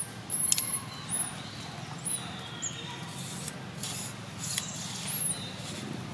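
Outdoor forest ambience: a steady low hum or hiss, with short, very high-pitched chirps every second or so in the first two seconds and again near the end, and a few sharp clicks.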